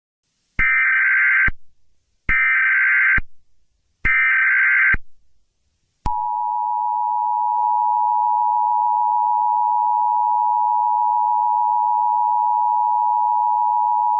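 Emergency Alert System tones: three one-second bursts of the SAME digital data header, then about six seconds in the steady two-tone attention signal, held for about eight seconds. Together they mark the start of a new emergency alert.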